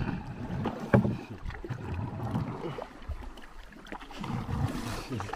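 Wooden paddles dipping and pulling through river water as a dugout-style canoe moves along, with wind rumbling on the microphone and a knock about a second in.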